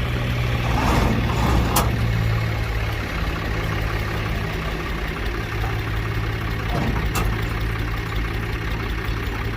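New Holland Ghazi tractor's diesel engine running steadily under load, driving a wheat thresher, with the noise of the threshing drum above the engine hum. Two sharp clicks sound, about two seconds in and again about seven seconds in.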